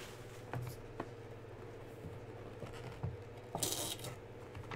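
Light handling of a cardboard trading-card box: a few soft taps and clicks, then a brief scraping rustle about three and a half seconds in as the lid is slid off. A faint steady hum sits underneath.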